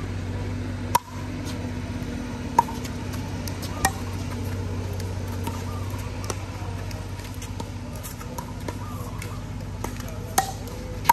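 Pickleball paddles striking the plastic ball during a rally: a sharp pock about a second in, two more within the next three seconds, fainter hits in between, and a loud one near the end, over a steady low hum.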